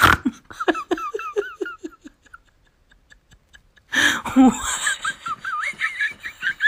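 Large dog howling in a warbling voice, its pitch wobbling up and down in quick notes. There is a first run of notes, then a louder second stretch beginning about four seconds in.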